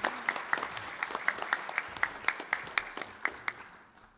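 Audience applauding, with single sharp claps close by standing out over the crowd's clapping. The applause dies away near the end.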